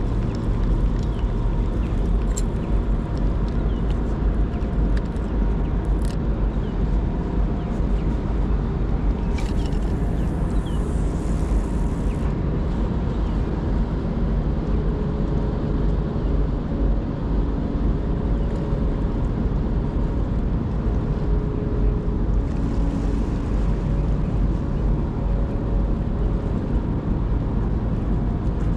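Large container ship's engines running as it passes close by: a steady low drone with faint steady humming tones above it.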